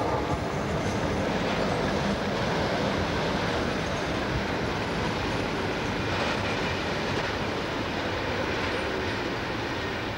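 Freight train hauled by a Class 56 diesel locomotive running past: a steady rumble of engine and wagon wheels on the rails, with some clicking over the rail joints. It eases off slowly toward the end as the train draws away.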